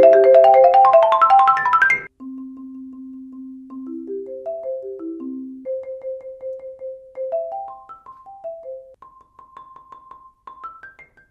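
Marimba played with Marimba One Wave Wrap yarn mallets: a loud, dense run of rising notes that cuts off abruptly about two seconds in, then a softer single-line melody with some notes rolled as fast repeated strokes.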